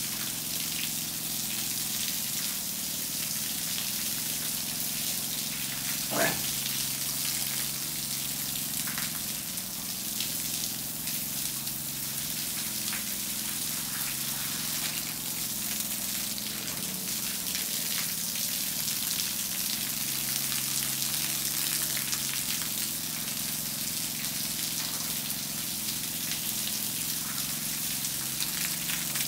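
Water jet from a hose spraying onto the wet concrete floor and pooled water of a crocodile pen, a steady hiss and splatter with a low steady hum underneath. A short sharp sound stands out about six seconds in.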